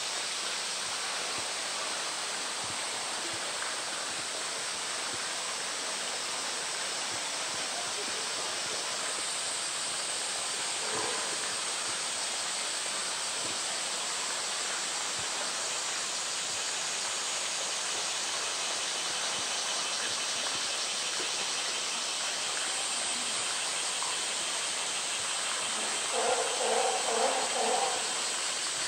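Steady rushing noise like running water. Near the end there is a short run of pitched, pulsing calls.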